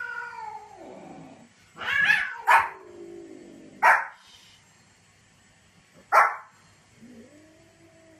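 Small white spitz-type dog barking sharply four times, about two, two and a half, four and six seconds in. Between the barks come long, drawn-out moaning calls that slide down in pitch, with one rising and then holding near the end.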